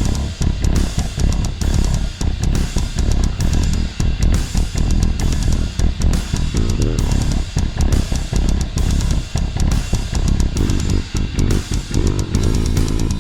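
Dingwall electric bass played through a Darkglass Exponent 500 bass amp with octaver, driving a heavy low end over a metal-style track with a drum kit.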